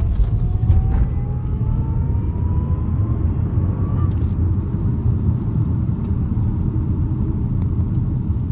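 Audi A7's 3.0T supercharged V6 running with a steady low rumble while the freshly refilled cooling system is bled. A faint whine climbs steadily in pitch and stops about four seconds in.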